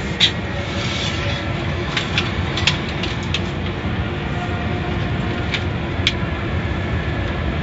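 Automatic car wash equipment running: a steady rumble and hiss with scattered light knocks and ticks, the sharpest about six seconds in.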